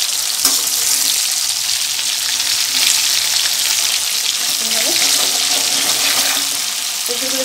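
Chunks of raw jackfruit sizzling steadily as they deep-fry in hot mustard oil in a kadai, with a metal slotted spoon stirring them and clicking against the pan now and then.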